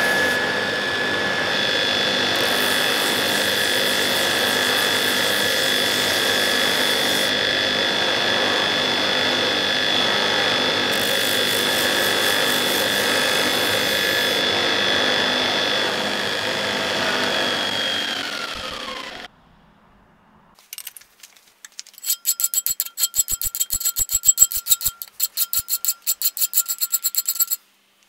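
Belt grinder running steadily with a high whine as a steel knife blade is ground on the belt. About 18 seconds in, the motor is switched off and winds down with a falling tone. Near the end comes a run of fast, rhythmic metal scraping strokes.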